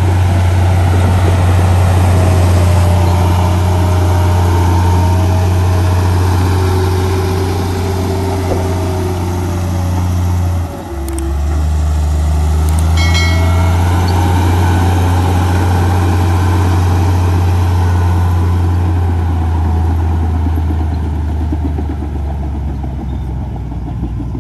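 Komatsu crawler bulldozer's diesel engine running steadily while pushing soil. The sound breaks off briefly about eleven seconds in, and a short high squeal comes a couple of seconds later.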